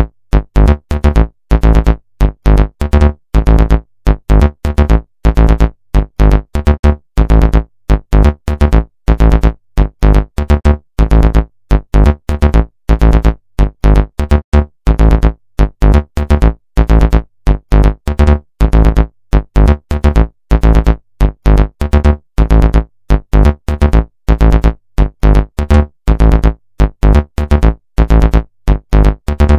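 Background music with a fast, choppy beat and heavy bass.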